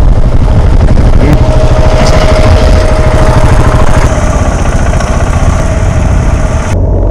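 Single-cylinder enduro motorcycle engine running under way on a dirt trail, with a fast, even thrum. The sound shifts at about four seconds and again near the end as the recording changes.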